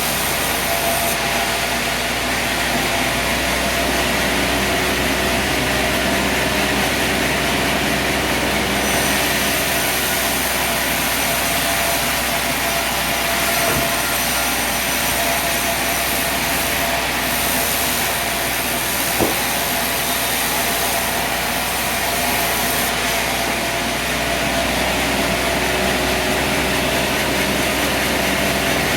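Sawmill running steadily, a continuous loud machine noise with a few steady tones through it; one sharp click about two-thirds of the way through.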